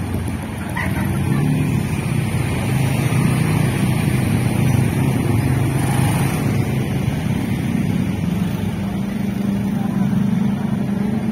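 Slow road traffic passing close by: a small car and several motorcycles and scooters, their engines making a steady low drone.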